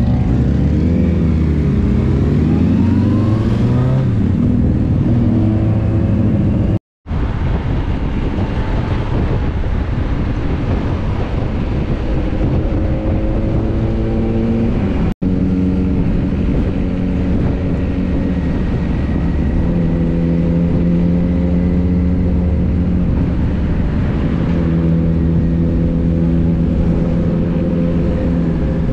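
Motorcycle engines pulling away from a stop, the pitch rising and falling through several gear changes, then running steadily at low town speed with small changes in pitch, heard from the rider's own bike. The sound cuts out completely for about half a second near seven seconds in, and again for an instant about halfway through.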